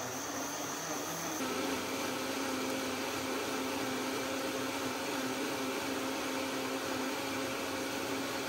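Vitamix 6300 blender running on its automatic smoothie program, grinding soaked glutinous rice and water into a smooth batter: a steady motor whir whose note shifts up and settles about a second and a half in.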